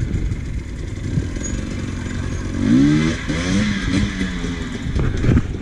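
Enduro dirt bike engines running close by with a choppy, pulsing idle; about halfway through one engine revs up, its pitch rising and then holding briefly before dropping back.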